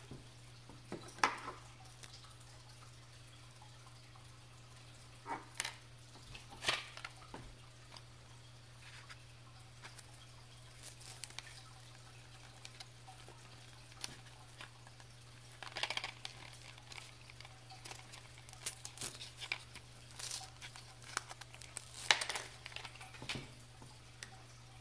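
Scattered small clicks, taps and crinkles of hand work on a wristwatch and a coin-cell battery blister pack: the plastic-and-foil pack crinkling as a CR2016 cell is pushed out, and small parts clicking on a wooden table. The sharpest clicks come about a second in and near the end, with busier crinkling in the later part.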